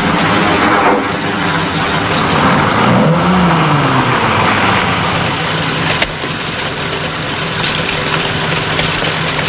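Truck engine running steadily, its pitch falling about three to four seconds in. A sharp knock comes about six seconds in, after which it runs a little quieter, with a few clicks near the end.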